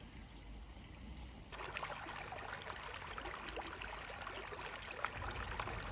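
Faint low ambience, then about a second and a half in, trickling water starts with a steady splashing hiss.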